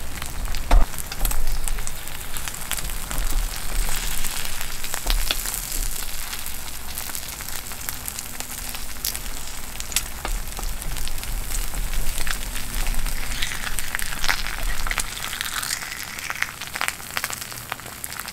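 Two eggs sizzling as they fry in a two-hole nonstick egg pan over a gas canister stove, the heat just turned down, with a steady hiss full of fine crackles.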